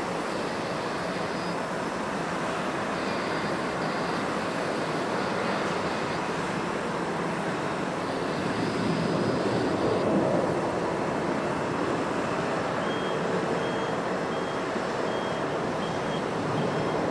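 Jet airliner engine noise mixed with wind, steady and swelling slightly about ten seconds in. A high beep repeats a little under twice a second over the last few seconds.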